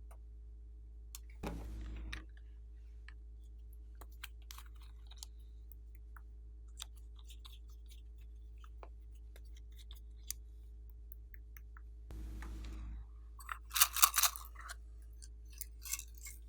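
Slime being handled: scattered small clicks and sticky crackles, with two brief rustles and a quick, louder run of crackling about fourteen seconds in.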